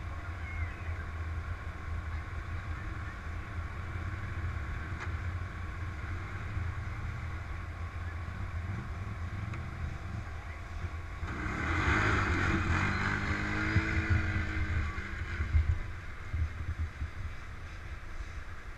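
Quad bike (ATV) engine idling steadily, then about eleven seconds in it revs up with a rising note and accelerates away for several seconds before easing off.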